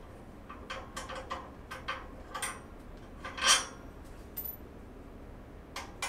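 Light metal clicks and clinks from steel dresser-frame parts being handled and turned, with one louder clack about three and a half seconds in.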